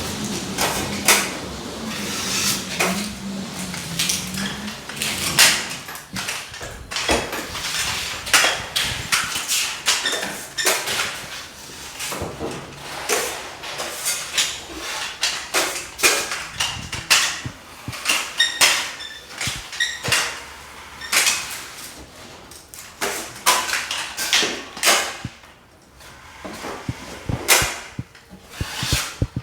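Drywall taping work: irregular knocks, clicks and scrapes of plastering tools and a mud box against walls and joints, with a faint low hum in the first few seconds.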